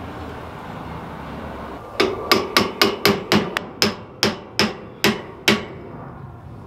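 Hand hammer driving a steel bolt into a trailer's leaf-spring hanger and shackle: about a dozen sharp metal-on-metal blows, roughly three a second, starting about two seconds in.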